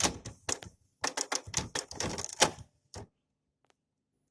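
Canon MX375 inkjet printer mechanism running a print job, clattering with rapid clicks for about three seconds and then stopping.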